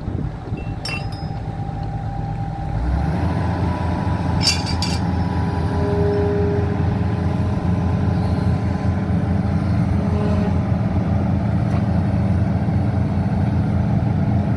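Hitachi hydraulic excavator's diesel engine running steadily, stepping up to a fuller, louder run about three seconds in as the arm is worked under hydraulic power, with a faint steady whine. Sharp metal clinks sound about a second in and again a few seconds later.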